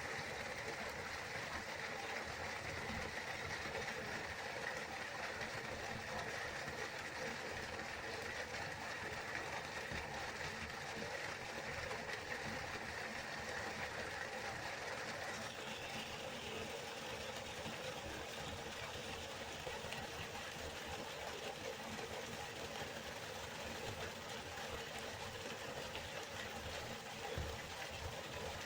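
Waterfall: a steady rush of falling water, whose tone shifts slightly about halfway through.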